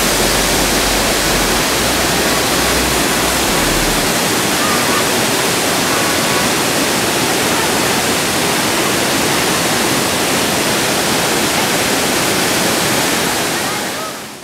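Steady loud rush of a mountain waterfall cascading over rocks, fading out in the last moment.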